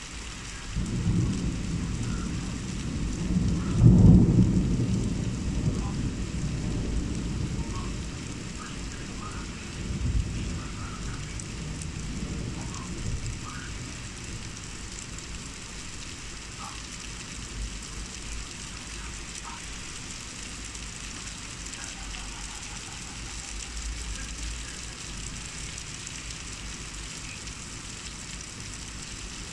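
Heavy rain falling with a steady hiss, and a long roll of thunder that starts about a second in, is loudest around four seconds, swells again a few times and rumbles away by about fourteen seconds.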